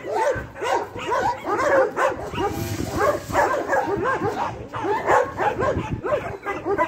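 Several dogs barking and yipping continuously, many short barks overlapping several times a second.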